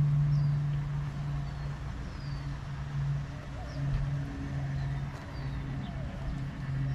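A steady low mechanical hum that swells and dips, with small birds chirping now and then.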